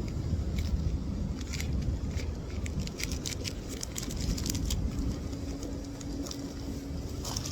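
Packets of beads handled in their plastic bags, with light crinkles and small clicks, over a steady low outdoor rumble.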